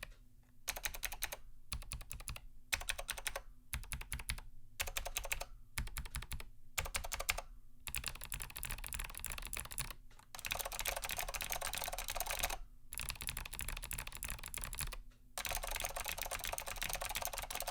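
Typing on a mechanical keyboard with clicky leaf-spring switches: dense sharp clicks and keys bottoming out. At first the typing comes in short bursts with brief pauses, then from about eight seconds in it runs on for several seconds at a time.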